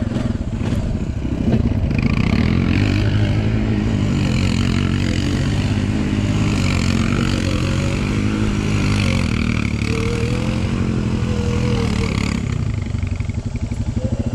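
Four-wheeler (ATV) engine running hard and revving under load while doing donuts in mud. It gets louder about two seconds in and eases off slightly near the end.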